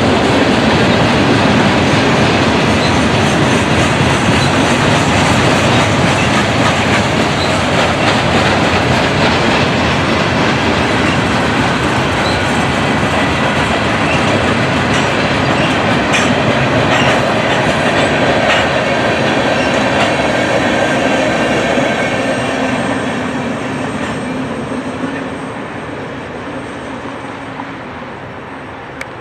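Freight cars of a manifest train rolling past, wheels clacking over the rail joints with thin squealing. The sound fades over the last several seconds.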